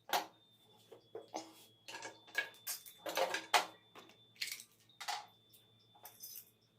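Irregular clinks and knocks of metal tools and parts being handled, some ringing briefly, with a faint steady high whine underneath.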